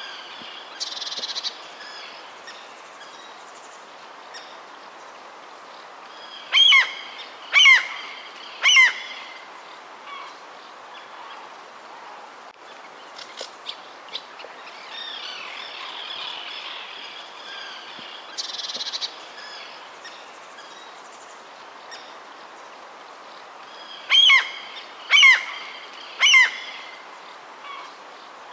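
Birds chirping and calling steadily, with one louder bird giving a phrase of three loud, sharply falling calls about a second apart. The same three-call phrase comes twice.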